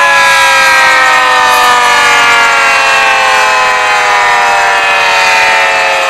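Alarm siren winding down: a loud wail of several tones together, falling slowly and steadily in pitch.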